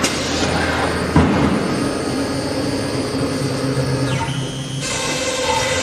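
Acctek AKM6090C CNC router's spindle running and cutting wood: a steady machine whine with cutting noise and a knock about a second in. Shortly after four seconds a pitch falls, and near the end the sound switches abruptly to a new set of steady whining tones.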